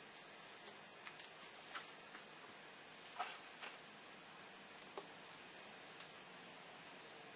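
Faint, scattered clicks and ticks of plastic LEGO bricks being handled and pressed together, about a dozen irregular little clicks.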